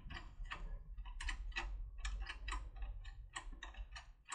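Lever-lock pick working inside a pro-cam (border) lever lock, giving quick, irregular light clicks, about five or six a second, over a low handling rumble. The clicking is the pick hitting the lock's false hooks (trap levers) instead of opening it.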